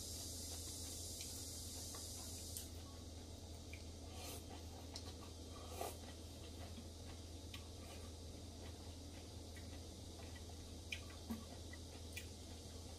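Faint eating sounds: a person chewing a mouthful of soup vegetables, with a few small sharp clicks of chopsticks against a porcelain bowl, the loudest about halfway through and near the end. A steady low hum runs underneath.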